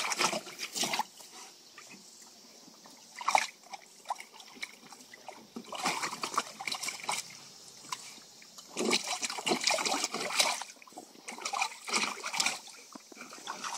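Water splashing and sloshing in a shallow plastic kiddie pool as two German shepherds move and paw in it, coming in irregular bursts every few seconds with quieter trickling between.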